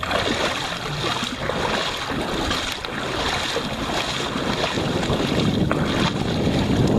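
Wind buffeting the microphone, with shallow water sloshing and splashing around a dog's legs as it wades. The noise is steady and grows a little louder near the end.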